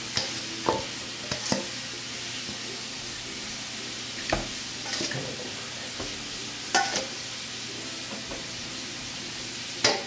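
Metal tongs clicking and sticky, sauced ribs being set down on a pile of rice in a foam container, a handful of short clicks and light knocks spread out over a steady hiss.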